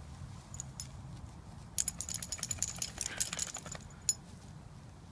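Metal dog collar tags jingling in a quick, irregular flurry for about two seconds as the dog wriggles and rolls on the ground, with one more clink shortly after.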